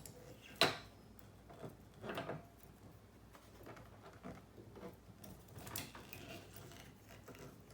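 Windshield wiper arm being handled and repositioned on its spindle: one sharp click about half a second in, then a few softer knocks.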